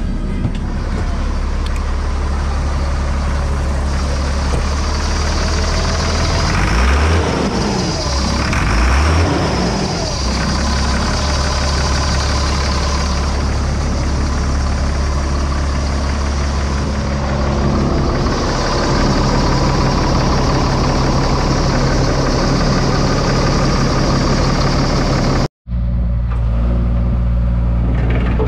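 2001 Sterling Acterra truck's diesel engine idling, revved twice briefly about seven and nine seconds in, then back to a steady idle. The sound drops out for an instant near the end.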